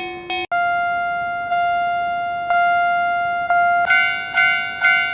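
Level-crossing warning bell sound effects, rhythmic pitched dings. A faster, lower ring cuts off half a second in, a slower, higher ring follows about once a second, and about four seconds in a brighter ring takes over at about two strikes a second.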